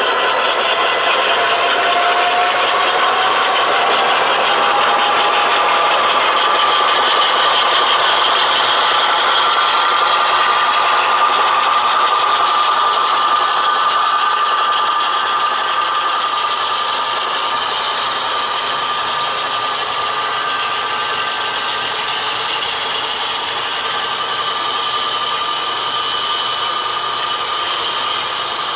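Sound-equipped HO scale model diesel locomotives playing decoder diesel engine sound through their speakers, with a whine that rises slightly in the first few seconds and then holds steady, over the rattle of the train's wheels rolling on the track. It grows a little quieter after about halfway as the locomotives move on and the freight cars pass.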